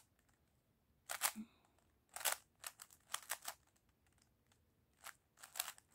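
A 3×3 Rubik's cube being turned quickly by hand: sharp plastic clicks as the layers snap round, in a few short clusters with brief pauses between.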